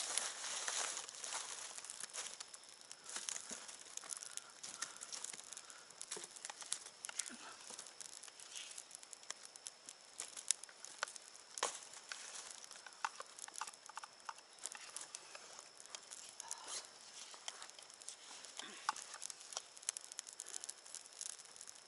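Campfire of a burning cardboard box and dry sticks crackling, with irregular sharp pops throughout.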